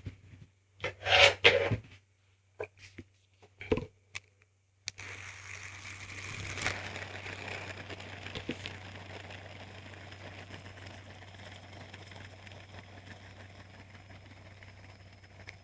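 Hand spinner handled with a few clicks and knocks, then set spinning about five seconds in; it whirs steadily and slowly fades as it spins down.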